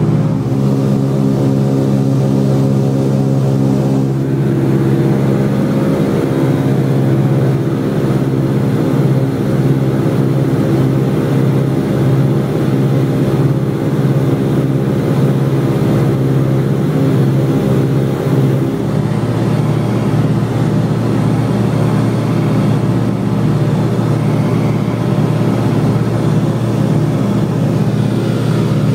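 Piston aircraft engine and propeller droning steadily as heard inside the cockpit in flight, with a slight shift in the engine tone about six seconds in and again about nineteen seconds in.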